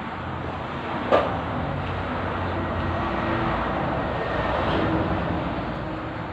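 A passing motor vehicle, its noise swelling and then fading, with one sharp knock about a second in.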